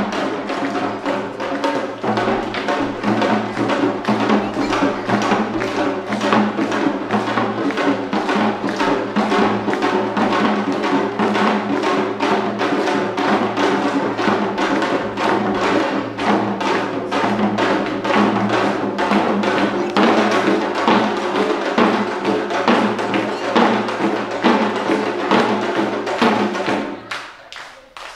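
Korean pungmul farmers' band percussion with buk barrel drums struck in a fast, even beat. The playing stops abruptly about a second before the end.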